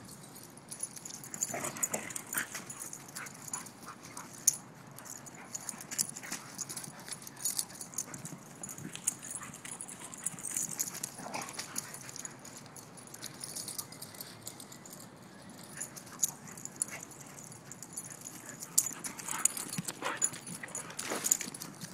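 Dogs, Siberian huskies among them, play-fighting: scuffling with irregular short dog vocal sounds, busiest near the start, in the middle and near the end.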